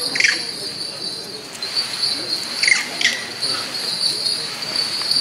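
Insects droning steadily in a high, even whine, with three short high squeaks or chirps, one at the start and two close together in the middle, over a low murmur of crowd voices.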